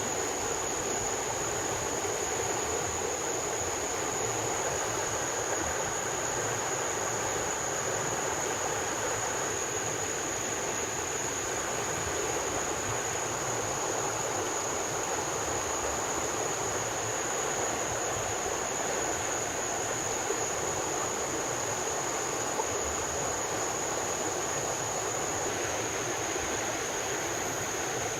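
Rainforest ambience: a steady rushing noise with a constant high-pitched insect drone held on one note throughout.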